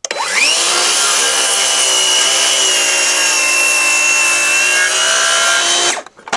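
Circular-blade power saw spinning up with a rising whine, then running steadily for about six seconds while crosscutting the end of a rough-sawn wooden joist square, and cutting off suddenly near the end.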